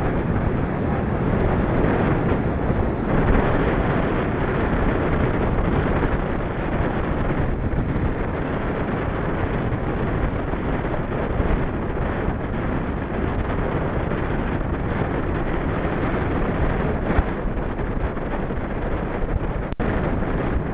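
Steady rushing wind buffeting the microphone while riding a bicycle, with a brief dropout near the end.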